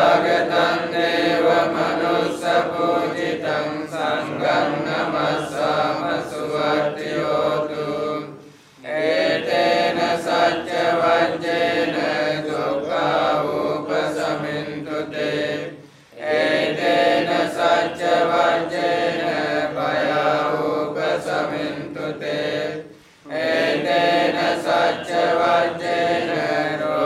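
Buddhist monks chanting Pali verses in unison, in long phrases with a short break for breath about every seven seconds.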